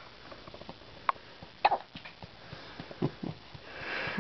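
Infant hiccupping after a feeding: a few short, sudden hiccups, the loudest about a second and a half in.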